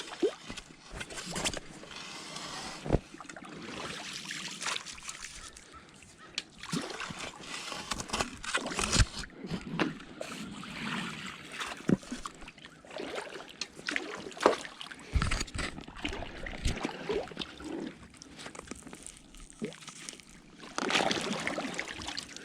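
Shallow river water sloshing and splashing, with scattered knocks and clacks of stones being dug out and handled along a rocky clay bank.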